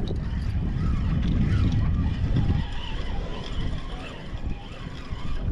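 Steady low rumble of wind on the microphone with water noise, dipping slightly about four seconds in, and faint voices underneath.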